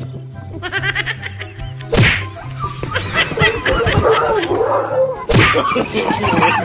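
Two sharp whacks about three and a half seconds apart, from a cardboard box being slammed and knocked against the ground, over background music.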